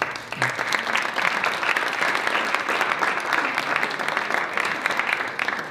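Audience applauding: a small crowd of people clapping together. The clapping starts suddenly, holds steady and dies away near the end.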